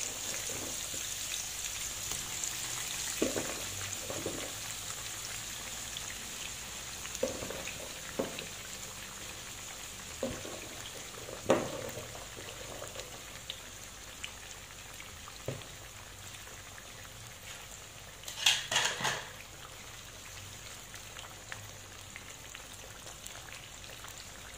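Courgette slices frying in hot oil in a non-stick frying pan, a steady sizzling hiss that eases a little as the pan fills. Scattered soft knocks come as more slices are dropped in, with a short louder clatter about three-quarters of the way through.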